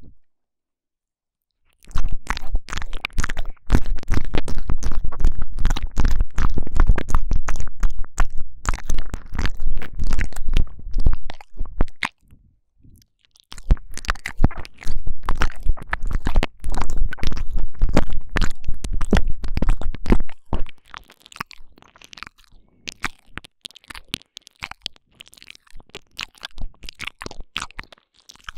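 Wet mouth sounds pressed up close to a binaural microphone's ear, 'ear eating': fast tongue clicks, lip smacks and licking crackles with a deep rumble underneath. They start after about two seconds of silence, run dense for about ten seconds, pause briefly, run dense again, then thin out to scattered clicks in the last third.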